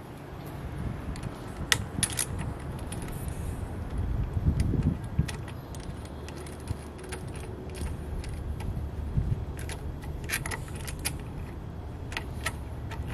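Light metallic clicks and jingles as a small screw and clamp hardware are handled and fitted by hand, bunched near the start and again toward the end. A low rumble runs underneath and swells around four to five seconds in.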